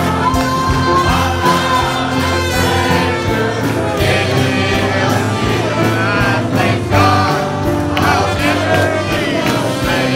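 A congregation of men singing a gospel hymn together over instrumental accompaniment, with long held chords and bass notes beneath the voices.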